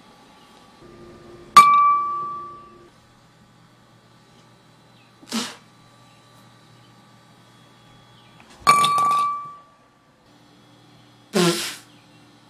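Ping-pong ball shots clinking against hard cups: two sharp clinks, each ringing at one clear pitch for about a second, about seven seconds apart, with a short rushing burst a few seconds after each.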